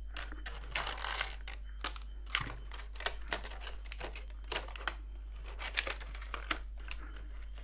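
Irregular clicks and crinkles of a clear plastic blister case being handled on the bench, with a multimeter resting in it, over a steady low hum.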